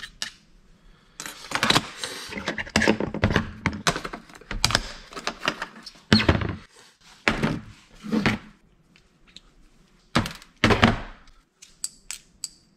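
Small metal and plastic parts from a stripped-down car radio being handled on a workbench: a run of knocks, taps and clatter, with a few louder thunks, then faint light clinks near the end.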